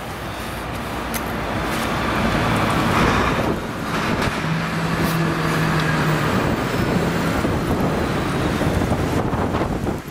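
Steady rushing noise of wind on the microphone mixed with road traffic, with a low engine hum for a couple of seconds midway.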